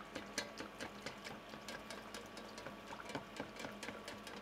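Loukoumades dough balls deep-frying in a small pot of hot oil, a faint, irregular crackle and sizzle of spitting oil as they are basted.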